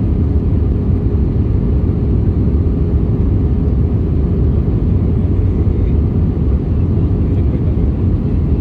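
Airliner cabin noise as the plane comes in to land: a steady low rumble of jet engines and airflow, heard from a window seat, with a faint steady hum running through it.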